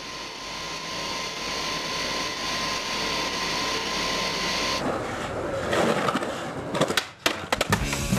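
Skateboard wheels rolling on hard ground, a steady hiss with a thin whine, stopping abruptly about five seconds in. A few sharp clacks follow, and rock music starts just before the end.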